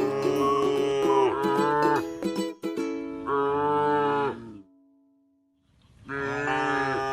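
Cattle mooing: several long, drawn-out moos, each falling in pitch at the end, with a short break about five seconds in. Ukulele music plays underneath.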